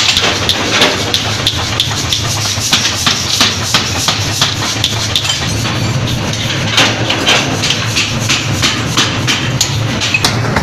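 Forging machinery working hot steel: a power hammer and press striking in rapid, irregular metallic blows, several a second, over a steady low machine hum that grows louder about five seconds in.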